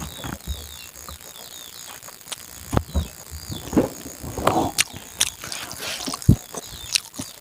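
Close-up eating sounds: irregular chewing and mouth clicks as rice and egg are eaten by hand, with faint insect or bird chirps behind them near the start.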